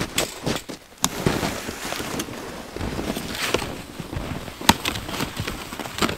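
Footsteps crunching through snow, with a few sharp snaps, the loudest about four and a half seconds in.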